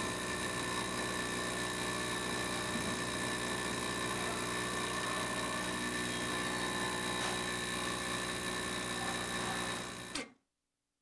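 Coffee machine running while it dispenses coffee into a cup: a steady mechanical hum with several held tones. It cuts off abruptly near the end.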